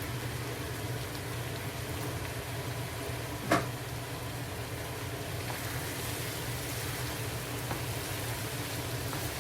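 Chicken frying in a pot, a steady sizzle over a low hum, with one sharp metal clink of a utensil about three and a half seconds in.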